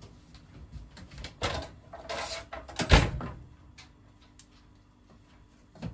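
Kitchen handling noises: a rustle, then a heavy thump of a kitchen door or cupboard shutting about three seconds in, with a few light knocks and clicks.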